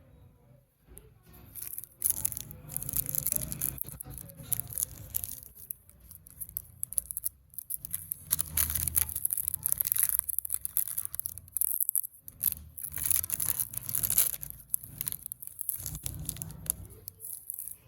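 Candy wrappers crinkling and tearing as lollipops are unwrapped by hand, in irregular crackly bursts.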